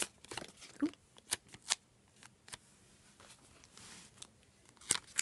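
Sticker paper being handled: a quick run of sharp crinkles and snaps in the first couple of seconds, then softer rustling as a sticker is laid on the planner page, and one more crisp snap near the end.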